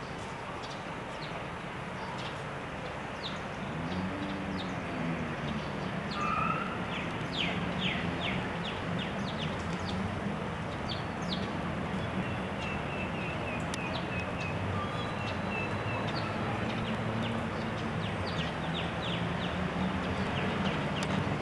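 Outdoor ambience: many short bird chirps and calls over a steady hiss and low hum, with a thin repeated whistling call about twelve to sixteen seconds in.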